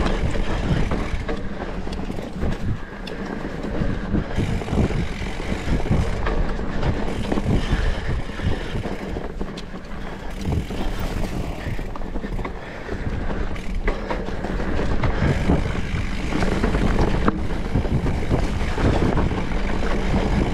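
Electric mountain bike being ridden along a dirt trail: tyres rumbling over the ground, with frequent knocks and rattles from the bike, and wind buffeting the action camera's microphone.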